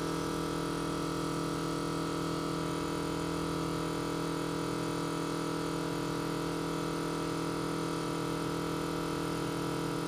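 Electric fuel pump running steadily with a constant hum, holding about 7 psi in the carburetor's fuel log with the engine not yet running.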